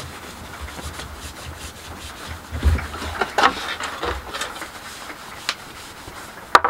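An old t-shirt rag rubbing along a waxed walking cane, buffing the microcrystalline wax to a shine: soft scuffing strokes with a few louder ones midway, and one sharp knock near the end.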